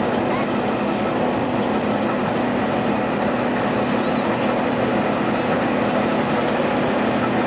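Motorboat engine running steadily at speed, a constant hum under a dense rush of water and wind.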